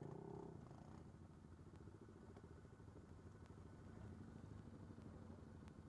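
ATV engines idling low and steady with a light pulsing beat, the quads stopped in line on a trail.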